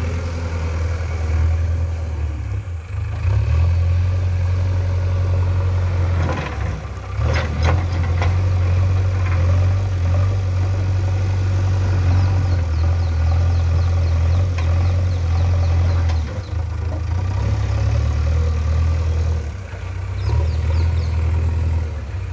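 Diesel engine of a JCB backhoe loader running steadily under load as its front bucket pushes and levels soil, the note dipping briefly a few times. A few short knocks come about seven seconds in.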